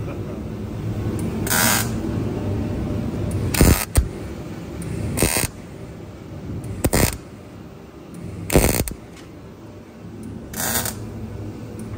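MIG welder putting tack spots on a steel inner wheel arch: six short bursts of welding, about one every second and a half to two seconds, over a low steady hum.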